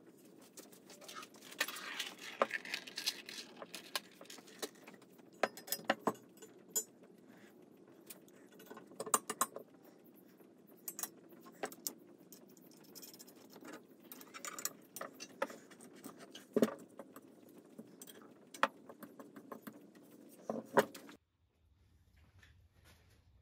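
Irregular metallic clinks and taps as small hardware is handled and fitted against cast iron desk legs during assembly, stopping suddenly near the end.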